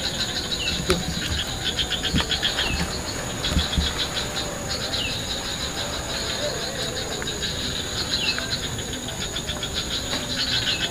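Insects chirping in rapid pulsed trills that come and go, over a steady high-pitched drone, with a few short falling chirps mixed in.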